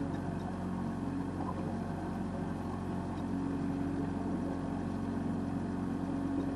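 A boat's motor running steadily at low speed, a constant low hum with no change in pitch.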